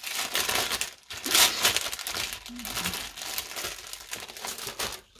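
Cross stitch kit packaging crinkling and rustling as it is handled, loudest about a second and a half in.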